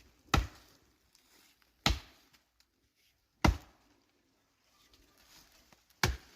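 Council double-bit axe chopping into white oak: four heavy strikes about a second and a half apart, the last after a longer pause.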